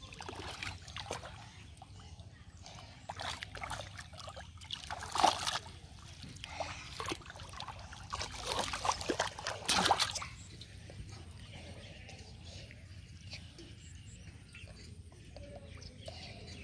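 Splashing and sloshing in shallow muddy water from wading and grabbing carp by hand: irregular splashes, the loudest about five seconds and ten seconds in, then quieter trickling in the last few seconds.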